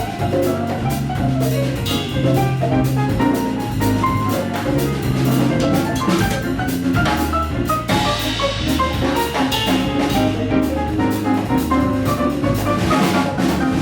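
Live Afro-Cuban Latin jazz: piano and bass playing over a busy drum kit and hand percussion groove.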